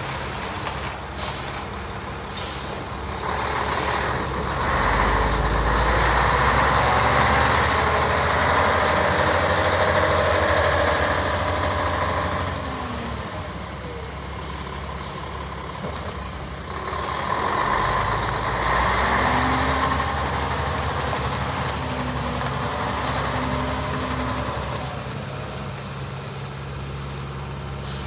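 Diesel engine of a 1997 Scania 8x4 hydrovac truck running as the truck drives and manoeuvres. It pulls harder twice, for several seconds each time, and eases back between. A short, sharp air-brake hiss comes about a second in.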